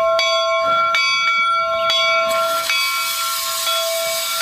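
Steam locomotive bell (a 4-4-0, replica of Central Pacific No. 60 Jupiter) ringing with a stroke about every half to three-quarters of a second. About halfway in, a loud steam hiss rises as steam vents from the open cylinder cocks, while the bell rings on underneath.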